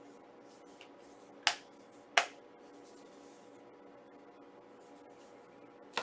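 Two sharp clicks about a second and a half and two seconds in, from a Blu-ray steelbook case being handled, with a faint steady electrical hum underneath.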